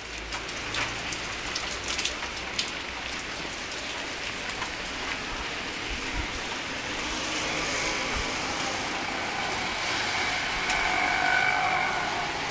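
Heavy rain pouring onto a flooded road, a steady hiss of drops striking standing water, with scattered sharper drip splashes in the first few seconds. A faint steady tone joins in the last couple of seconds.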